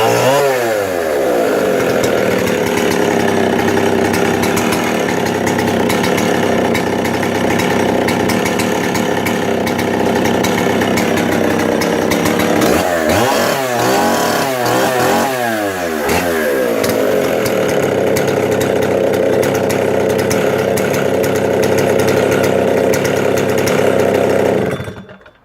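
Stihl 07S 75cc vintage chainsaw's two-stroke engine running just after starting, revved briefly at once, then idling. It is revved several times in quick succession about halfway through, settles back to a steady run, and cuts off near the end.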